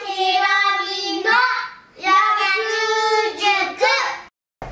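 A child's voice singing two short phrases with long held notes, cutting off abruptly near the end.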